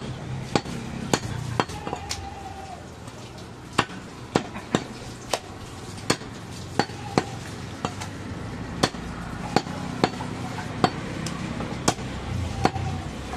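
Butcher's cleaver chopping goat leg meat on a round wooden chopping block. About seventeen sharp chops come at an uneven pace, one or two a second, with short pauses between runs of strokes.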